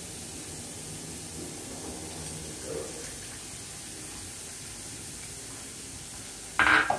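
Steady low hiss of food frying in a pan on a gas stove, with a short, louder clatter near the end.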